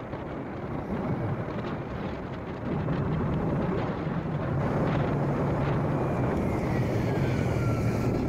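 Kawasaki Ninja motorcycle running on the move, with wind rushing over the microphone. The engine's low hum gets louder about three seconds in. A faint falling whistle-like tone comes near the end.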